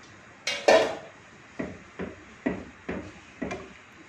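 A spatula stirring thin beef curry in a non-stick pan, knocking and scraping against the pan about twice a second, after a louder clatter about half a second in.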